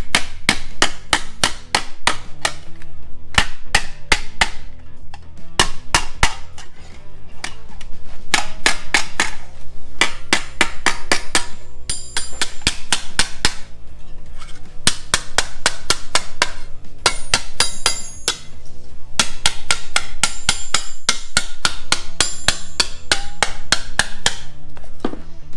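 Rapid hammer blows on sheet steel, about five a second in runs of a few seconds with short pauses, some blows ringing. The steel is being hammered into a soft curve and is starting to shrink and buckle.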